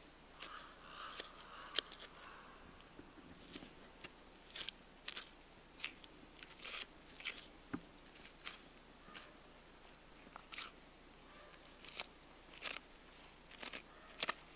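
Faint, irregular short ticks and scrapes of a knife cutting meat from an elk's ribs as the back strap is sliced free.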